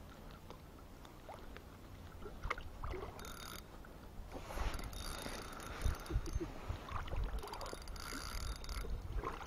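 Soft, irregular water splashing and sloshing as a hooked carp is led in close through shallow river water, with a few low rumbles on the microphone.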